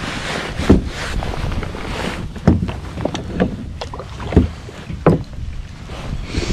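A handful of irregular knocks and bumps against a plastic fishing kayak as the landing net and rod are handled, over low wind noise on the microphone.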